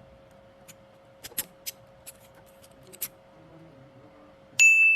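Small metallic clicks of a freshly cut snake key being handled and tried in a lock, a handful of separate ticks. Near the end comes a loud metallic ding that rings on with a clear tone and fades slowly. A faint steady hum lies underneath.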